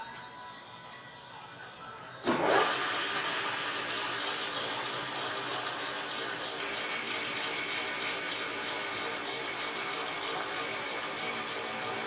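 A machine motor switches on about two seconds in and runs on steadily with a noisy hiss and a high hum.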